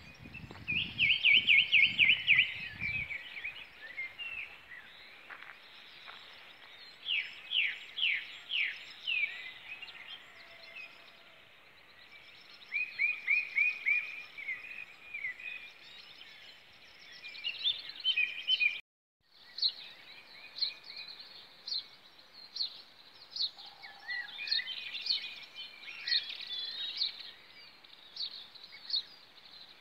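Dawn birdsong from several songbirds, with loud runs of quickly repeated high notes about a second in, around seven seconds and around thirteen seconds, and busier overlapping song in the second half. A low rumble sits under the first few seconds, and the sound cuts out briefly just before twenty seconds.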